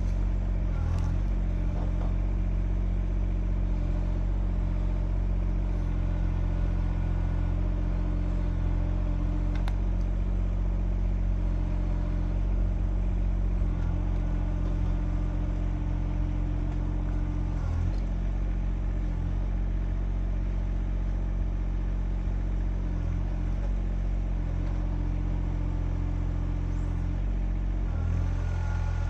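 Kymron XH20D mini-excavator's engine running steadily under work while digging out a tree stump, with a higher hum that comes and goes several times and a few faint clicks.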